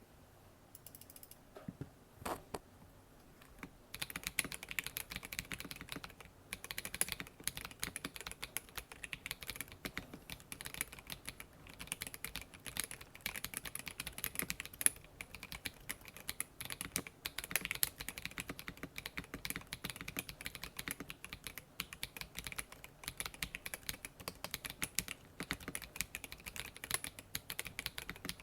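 Mechanical keyboard with stock Akko Lavender Purple tactile switches, a gasket-mounted polycarbonate plate and an acrylic case, being typed on. A few single keystrokes are followed, about four seconds in, by continuous fast typing.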